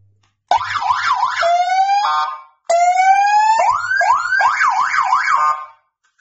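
12V electronic police siren sounding in two bursts. The first bursts out in quick up-and-down yelps, then a slow rising wail and a short stuttering tone. After a brief break, a second burst starts with a rising wail, goes into fast yelps again, and fades near the end.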